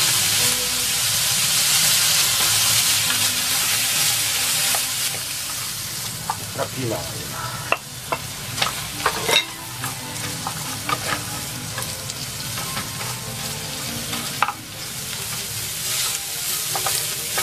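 Sliced beef and eggplant sizzling in an oiled frying pan as they are stir-fried; the sizzle eases a little after about five seconds. From about six seconds in, scattered sharp clicks and knocks of wooden utensils against the pan as green peppers are tipped in and stirred through.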